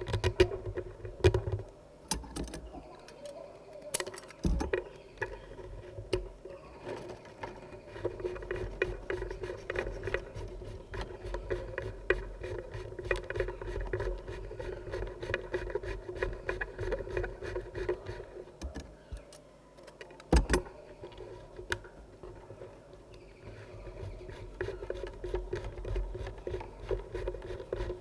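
Thin bamboo strips rubbing and clicking as they are wound tightly by hand into a coil, building up the bamboo base of a piece of Burmese lacquerware. A rapid, dense patter of small clicks and scrapes, with a few sharper knocks.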